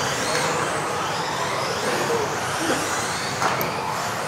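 Several 1:10 electric off-road RC buggies racing, their brushless motors whining up and down in pitch as they speed up and brake, over a steady rush of tyre and motor noise.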